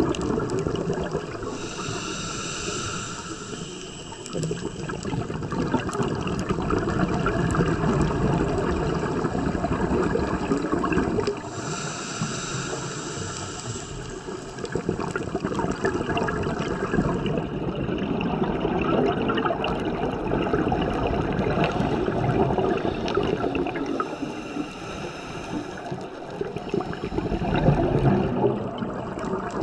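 Scuba regulator breathing heard underwater: a hissing inhalation roughly every ten seconds, three in all, each followed by a long bubbling exhalation.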